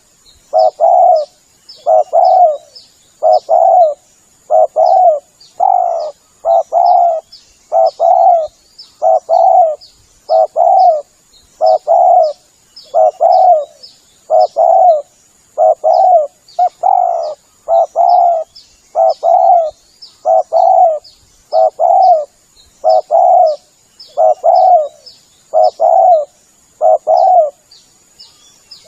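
Spotted dove (tekukur) song, a lure call: a low coo phrase of two or three notes repeated over and over without a break, about one phrase every second and a half.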